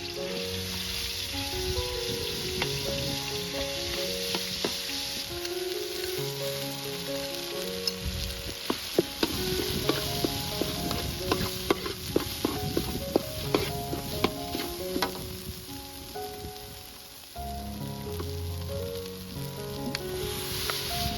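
Food sizzling as it fries in a pan, with a spatula knocking and scraping against the pan in a quick run of clicks from about 8 to 15 seconds in. A background music melody plays throughout.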